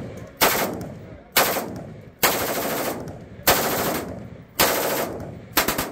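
HK33K rifle in 5.56 mm firing six loud shots about a second apart, each report trailing off in a ringing echo.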